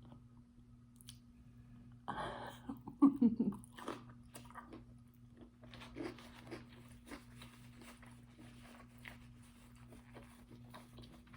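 Close-up eating sounds: a loud crunchy bite about three seconds in, then steady chewing with many small crunchy clicks, from cucumber, sausage and rice.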